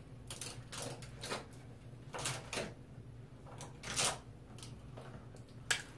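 Small objects being handled and moved about, as when reaching for makeup such as a powder: a string of about a dozen irregular light clicks and rustles, the strongest about two seconds in and about four seconds in.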